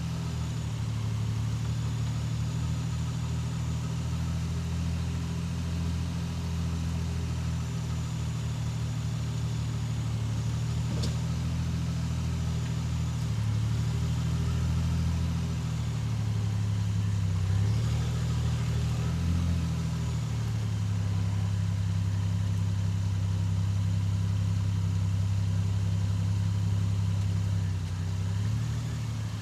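Toyota 1JZ-GTE turbocharged 2.5-litre straight-six running at low, fairly steady revs, with a few small rises and dips in pitch partway through.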